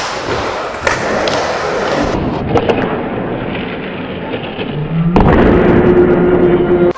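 Skateboard wheels rolling around a bowl, with a few sharp clacks of the board. From about five seconds in the wheel noise gets much louder as the rider comes back down from an air.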